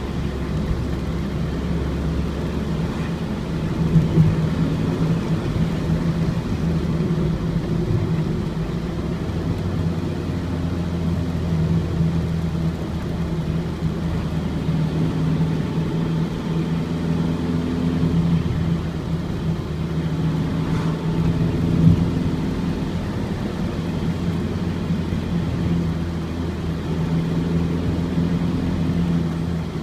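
Ford Transit's four-cylinder diesel engine running steadily under way, heard from inside the cab along with road noise. There are a couple of brief knocks, one about four seconds in and one past the twenty-second mark.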